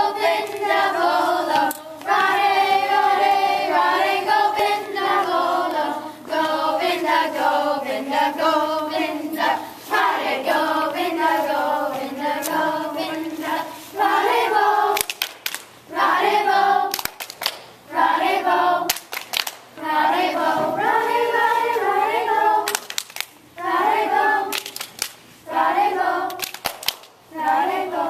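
A group of children singing together in unison, holding long notes. About halfway through, the singing breaks into short phrases with sharp hits in between.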